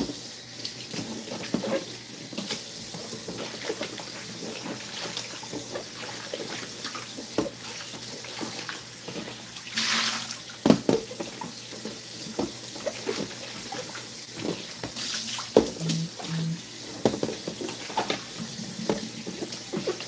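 Kitchen faucet running into a large plastic basin that is being rinsed out by hand, water splashing inside it, with occasional knocks as the basin is handled. About ten seconds in there is a louder rush of water.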